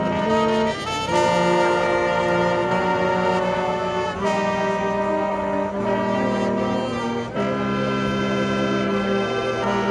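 High school marching band playing, brass to the fore: trumpets and trombones holding sustained chords that change every second or so.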